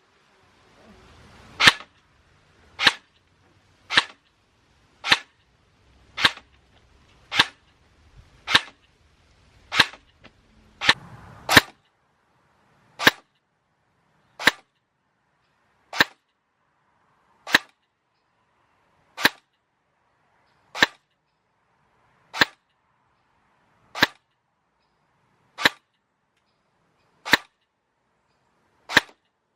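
Barrett M82 semi-automatic electric airsoft gun firing single shots, about twenty sharp cracks in a row. They come roughly one a second at first, then spread out to about one every second and a half.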